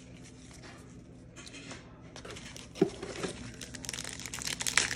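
Foil wrapper of a trading card pack crinkling and tearing as it is opened, starting about halfway in and growing louder toward the end, with one soft knock about three seconds in.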